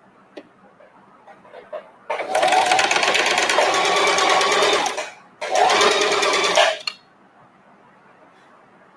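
Electronic sewing machine stitching a seam through two layers of fabric, with fast, even needle strokes. It runs for about three seconds, stops briefly and runs again for about a second and a half.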